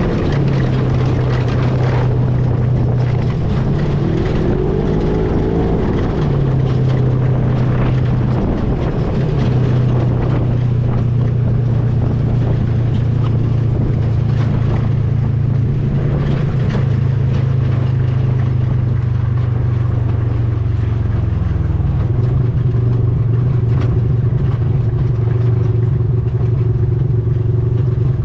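Engine of a moving vehicle running steadily at a constant pace, its pitch shifting slightly a few seconds in and again about two-thirds of the way through.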